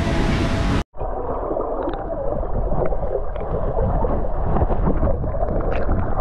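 About a second of open-air poolside noise, then a sudden cut to the sound of a camera held underwater in a pool: muffled rushing and gurgling water with small scattered clicks, dull and with nothing high-pitched.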